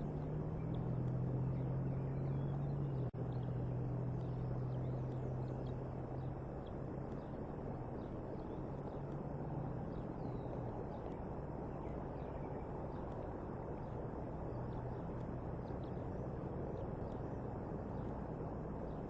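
Steady outdoor ambience from a live eagle-nest camera microphone: a low hum with a rushing background and faint high chirps now and then. The sound drops out briefly about three seconds in.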